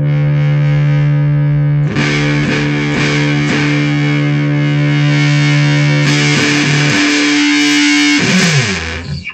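Electric guitar played through a Sonicake Fazy Cream fuzz pedal: a held fuzzed chord, struck again about two seconds in with a brighter, buzzier tone, followed by a few more strikes. Near the end the pitch slides downward.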